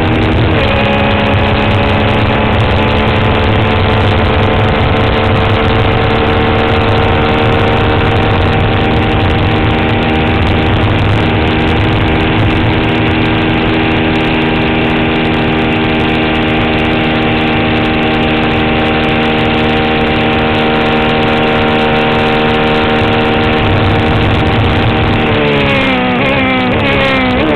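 Onboard sound of a Swift DB4 Toyota Atlantic race car's 1.6-litre four-cylinder Toyota engine held at steady high revs under full throttle, its pitch creeping slowly upward, with wind and road noise. About 25 seconds in the revs fall steadily as the car slows, and they jump back up right at the end.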